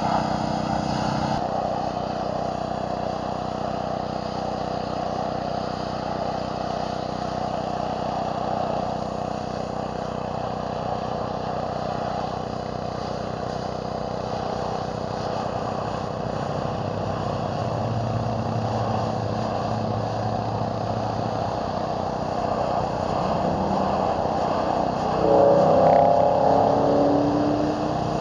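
Gas pressure washer engine running steadily while a surface cleaner sprays water over concrete, a continuous hissing wash over the engine's drone. A brief louder sound with wavering pitch rises over it near the end.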